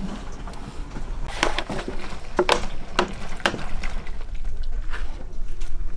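Kitchen knife knocking and scraping on a plastic cutting board as chopped spoon worm is gathered up, with several sharp knocks in the first half.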